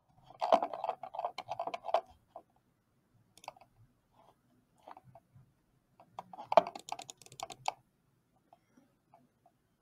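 Typing on a computer keyboard: a quick run of key clicks over the first two seconds, a few scattered clicks, then a second run about six to eight seconds in.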